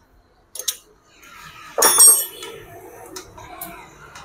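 Steel hand tools clinking and clanking against each other: a few light clicks, then one loud ringing clank of a wrench among sockets about two seconds in, then more light clicks.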